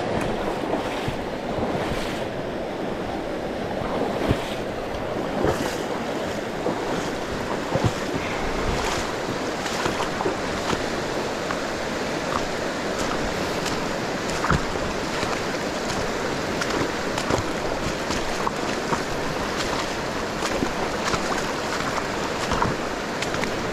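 River water rushing steadily, with short sharp clicks scattered throughout.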